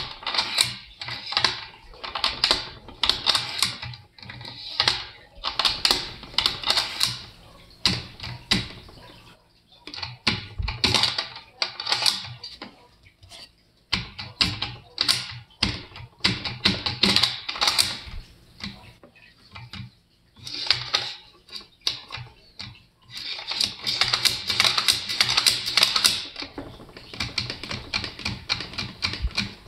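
Bolt of an American Rifle Company Nucleus bolt action worked by hand, over and over: the handle lifting, steel sliding back and forth, and the bolt clacking shut, in repeated bursts. The owner is showing that the bolt binds when the handle is pushed outward during cycling, and runs smooth under inward pressure.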